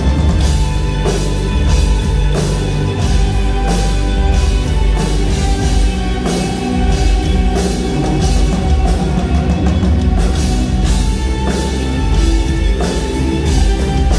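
Live rock band playing loudly: electric guitars, a drum kit and a keytar, driven by a steady drum beat.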